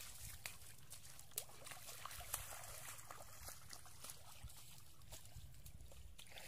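Shallow muddy rainwater running and trickling in a steady, quiet stream, with many small splashes and drips.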